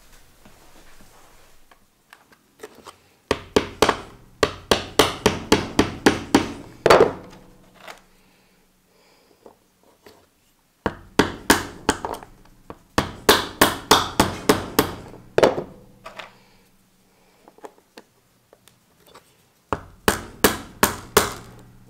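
Claw hammer tapping 3D-printed plastic Coanda wedge strips on an OSB board. The taps come in three runs of quick, even knocks, about three a second, with short pauses between runs.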